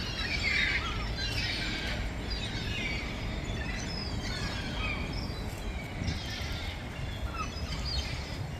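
Small birds chirping and twittering in quick, overlapping short calls, over a steady low outdoor rumble.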